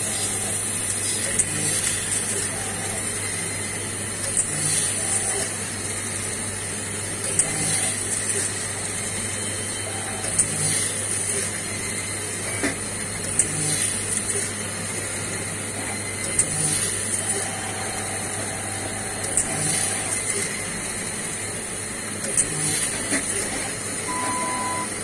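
Siemens ADVIA 1800 clinical chemistry analyzer running: a steady hum and high hiss from the machine, with a cycle of mechanical clicks and whirs that repeats about every three seconds. A brief steady tone sounds near the end.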